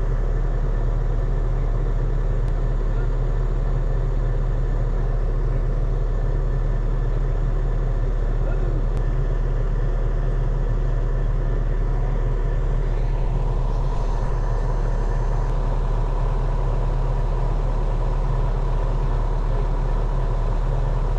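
Heavy earthmoving machine's diesel engine running steadily at a constant speed, with a higher steady whine joining about thirteen seconds in.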